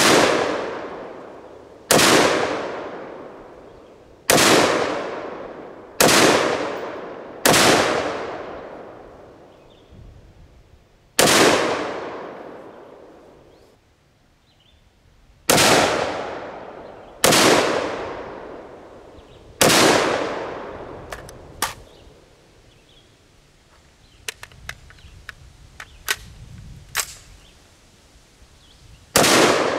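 AR-15 rifle in 5.56 fired in slow, single aimed shots, about ten in all at irregular intervals of roughly 1.5 to 4 seconds. Each report trails off over a second or two. A pause after the ninth shot holds a run of small sharp clicks, and the last shot comes near the end.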